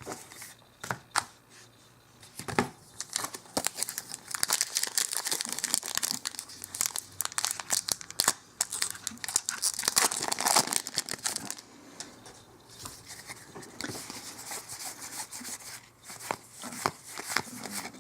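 Foil wrapper of a Magic: The Gathering booster pack being torn open and crinkled, a dense crackling from about four seconds in until about eleven seconds, then fainter, scattered rustling.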